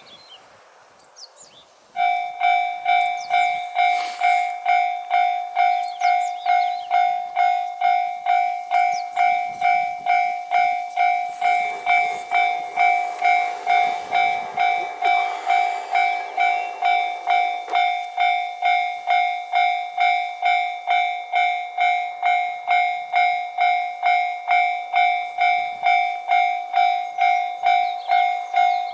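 Japanese railway level-crossing warning bell starting up about two seconds in and ringing steadily, a loud electronic ding at about two strikes a second, signalling an approaching train. Birds chirp faintly before it starts.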